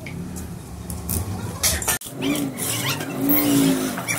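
A motor vehicle engine running and revving, its pitch rising and falling several times in the second half, with a few sharp metallic clicks before that.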